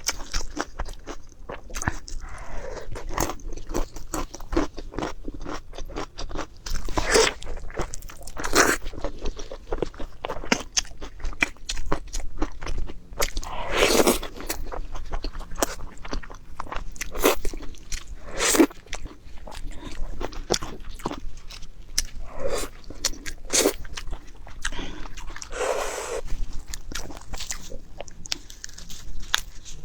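A person biting and chewing crunchy food, with many small clicks of chewing and a few louder crunches scattered through, the loudest about halfway.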